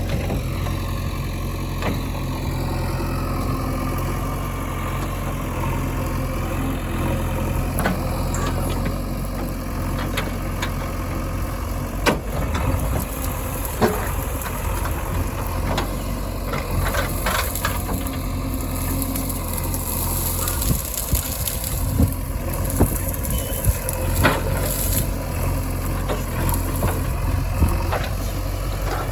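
Heavy diesel machinery engine running steadily at a low idle, with scattered sharp knocks and clanks from about eight seconds in.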